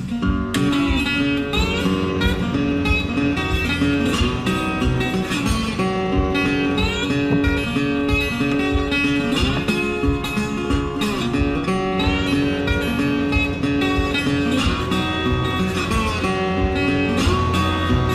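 Background music: an acoustic guitar strumming steadily in an instrumental break of a folk song.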